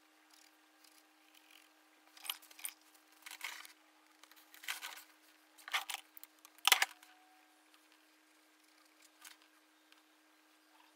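A run of short, scratchy scrapes and rustles from brush work on a canvas and the handling of painting tools, the loudest a little past halfway, over a faint steady hum.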